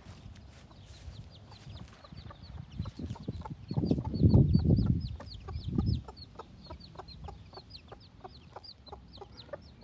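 Day-old chicks peeping steadily: short, high, downward-sliding peeps, several a second, with a mother hen clucking low among them. A loud low rumble cuts in at about four seconds and lasts about two seconds.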